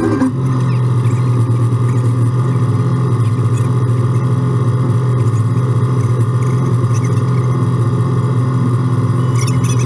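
Side-by-side UTV engine running at a steady speed, an even low drone with no revving.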